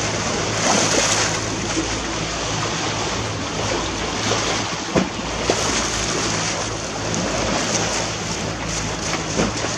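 Water rushing and splashing along the hull of a sailboat under way, over a steady low hum. A few short knocks stand out, the clearest about five seconds in.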